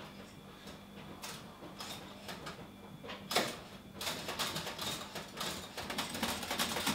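Electric toaster being handled: faint scrapes as bread goes into the slots, a sharp clunk about three seconds in, then a run of rattling clicks as the lever and controls are worked.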